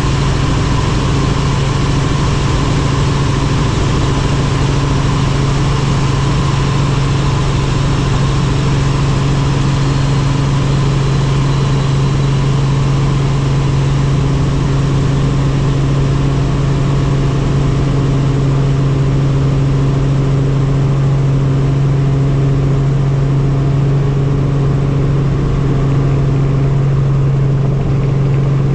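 Helicopter engine and rotor running steadily, a loud constant drone with a strong low hum.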